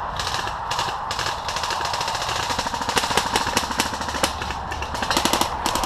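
Airsoft guns firing: scattered single shots and short rapid-fire bursts, the densest about three seconds in and again near the end.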